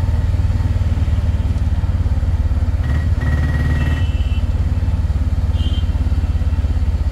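Engine of a small vehicle running steadily up close: a fast, even low throb. A brief high tone sounds about three seconds in.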